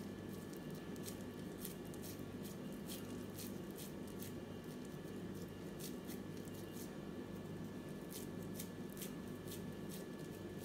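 Hands squeezing and pressing wet minced meat along a wooden skewer to stretch it into a thin, long kebab, making faint, irregular sticky clicks and squelches, a few a second, over a steady low hum.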